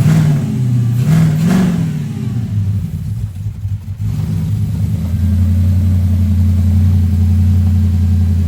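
Audi S5's 4.2 litre V8 engine running just after first being started following the rebuild. It is revved twice in the first couple of seconds, the revs sag about three seconds in, then it settles into a steady idle.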